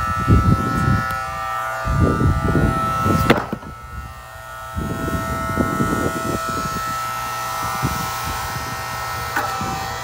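Electric hydraulic log splitter running with a steady motor whine, while firewood knocks and crackles against the machine in rough bursts, with one sharp crack about three seconds in.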